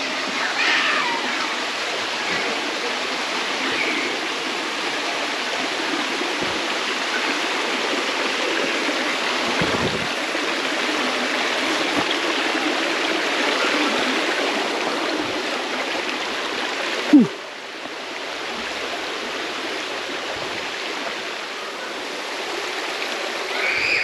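Steady rush of flowing stream water. About seventeen seconds in there is a single brief knock, after which the rushing is a little quieter.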